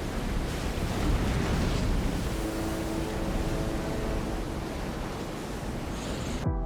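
Storm waves crashing and strong wind buffeting the microphone, a steady rushing roar that cuts off abruptly near the end.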